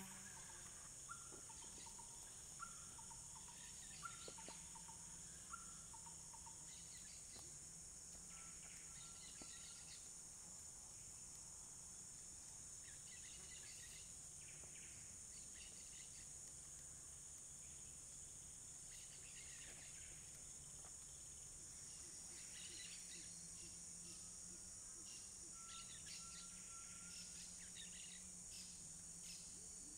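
Faint dawn rainforest ambience: a steady high drone of cicadas and other insects, with short repeated bird whistles in the first few seconds and scattered chirps later. A low steady hum runs underneath.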